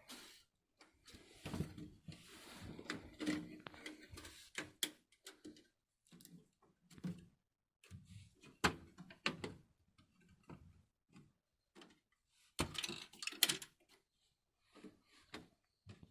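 A desktop computer case being handled: irregular knocks, clicks and scraping of its case panels, with louder spells of rustling and scraping about two seconds in and again near the end.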